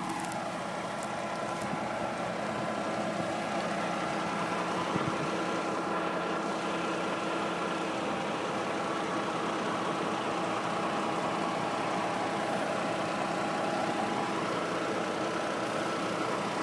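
A heavy truck's diesel engine idling steadily, with a constant hum and a few steady tones over it.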